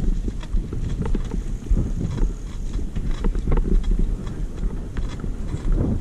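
Mountain bike riding over a bumpy dirt trail: a steady rumble of tyres and wind on the microphone, with frequent rattling clicks from the bike jolting over the ground.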